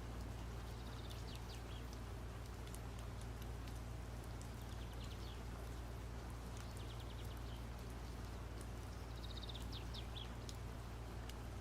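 A small bird chirping in several short, quick trills of high notes, over a steady low hum.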